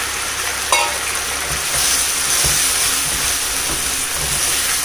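Gobi Manchurian sauce bubbling and sizzling in a pan as fried cauliflower fritters are stirred into it with a spatula.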